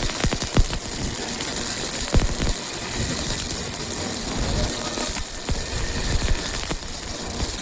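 Heavy fabrication-shop machinery running steadily, under a constant hiss, with scattered sharp metallic knocks and clicks.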